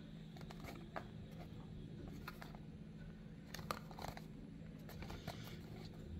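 Faint handling of a small cardboard toy-car box turned in the fingers: scattered soft clicks and rubs of fingertips on card, the loudest a little under four seconds in, over a low steady hum.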